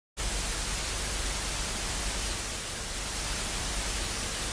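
Steady static hiss, like white noise, cutting in abruptly just after the start and holding level, with a low rumble underneath.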